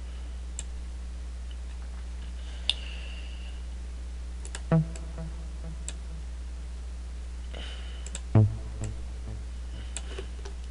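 Computer mouse clicks as notes are drawn into a software piano roll, with two brief synth note previews, about four and a half and eight and a half seconds in, each trailing off in a few quick repeats. A steady low electrical hum runs underneath.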